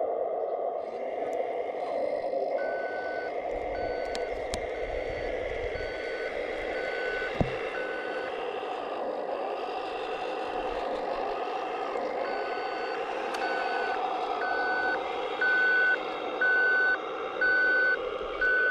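An RC scale Scania hooklift truck's sound module plays a reversing beeper, about one beep a second, over a steady engine sound; the beeps pause for a few seconds midway and come back louder near the end. A single sharp click about seven seconds in.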